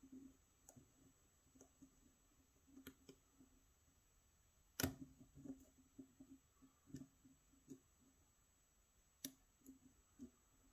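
Faint clicks and taps of a hook pick working the pins of a pin-tumbler lock cylinder under tension, with two louder sharp clicks about five and nine seconds in.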